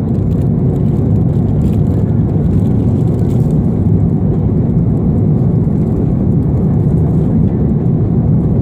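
Airliner cabin noise at cruise altitude: a steady, even low rush of air and engine noise with no breaks.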